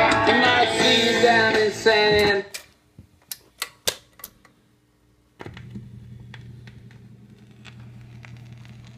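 A 1955 RCA Victor 45 rpm record player: a record's music ends about two seconds in, followed by a few sharp mechanical clicks as the changer cycles. From about five seconds in comes a steady low hum with faint surface noise and light ticks as the stylus rides the quiet groove before the next song.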